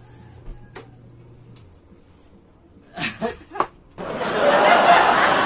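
People laughing: a few short giggles about three seconds in, then loud, continuous laughter from about four seconds on.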